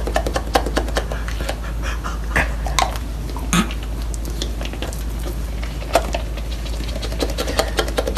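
A dog's sounds: fast, irregular clicking with a few short louder sounds, over a steady low hum.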